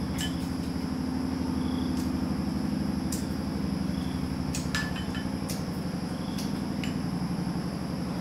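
A small motor running steadily with a low hum, with a few light clicks scattered through.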